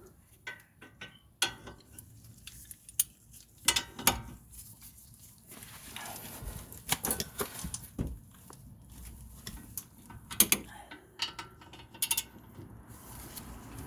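Ratchet wrench with a 17 mm socket clicking in irregular runs, with a few sharper metal knocks, as the brake caliper bracket bolts are tightened.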